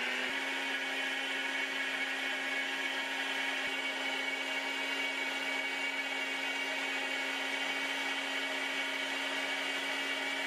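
NutriBullet RX blender's motor running at a steady high speed, blending hot vegetable soup in the pitcher. It gives one even whine that settles to its full pitch just after the start.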